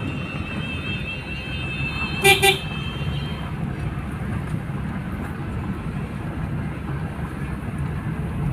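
Two quick car-horn beeps about two seconds in, over the steady road and engine rumble inside a moving car's cabin.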